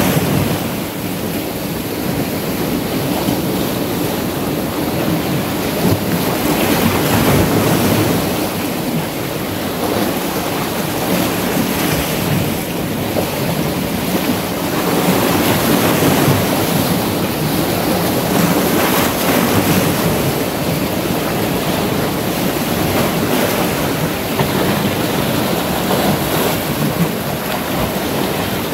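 Sea surf washing in around large shoreline boulders, a steady rush of water that swells and eases every few seconds as waves break.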